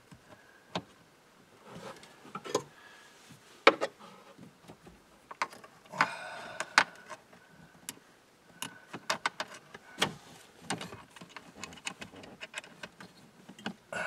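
Irregular metallic clicks and taps of a small wrench turning a screw on a plastic HVAC blend door actuator as the screw is backed out, with a louder scrape about six seconds in.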